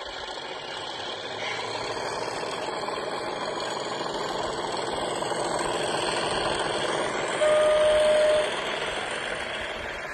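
Sound-fitted model Class 37 diesel locomotive running past, its engine and running sound growing louder. Near the end it gives a single steady horn blast of about a second.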